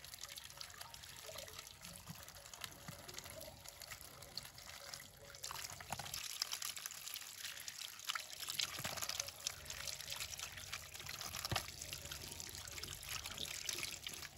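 Water running from an outdoor tap and splashing as vegetables are rinsed under it by hand, trickling down into a metal bowl. The splashing grows louder about six seconds in.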